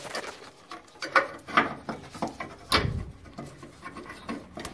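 Scattered clicks, scrapes and knocks of a new inline fuel filter and its fuel lines being handled and slid into place by a gloved hand, with one heavier thump near the middle.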